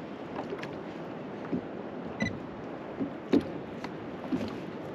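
Small fishing boat on the water: a steady wash of water against the hull with irregular knocks, and one short electronic beep about two seconds in.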